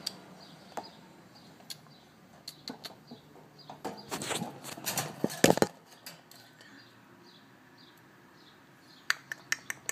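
Pet budgerigars moving about a wire cage: knocks, clicks and rattles, with a louder flurry of rustling and knocking about four to five and a half seconds in and a quick run of clicks near the end. Faint short chirps repeat about twice a second underneath.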